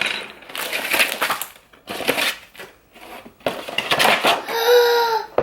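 Crinkling and crackling of a craft kit's packaging being handled and opened, in several bursts with short pauses between. Near the end there is a short high-pitched call from a voice.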